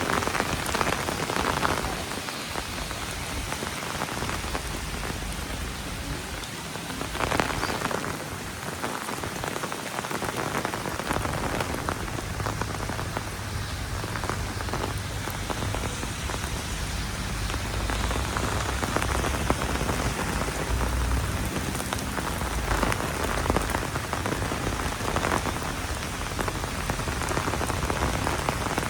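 Heavy rain falling steadily and pattering on surfaces, with now and then a brief louder splash or gust of drops and a low rumble underneath in the second half.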